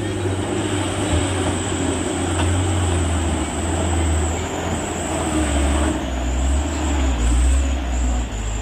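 A road vehicle's engine running close by with a steady low drone, its pitch sinking slightly about halfway through.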